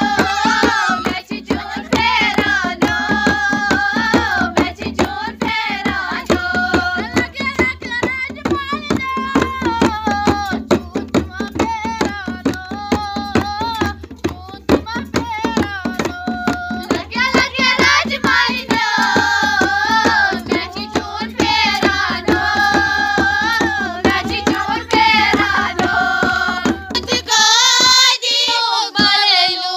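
A group of women singing a folk song together over tumbaknaer, Kashmiri clay goblet drums, with hand clapping keeping a steady, fast beat.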